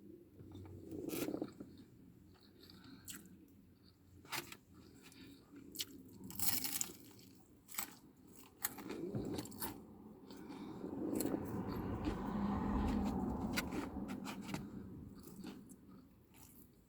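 Close-up chewing and crunching of deep-fried prawn and vegetables, with sharp bite crunches scattered through and a longer, louder low rumble in the middle.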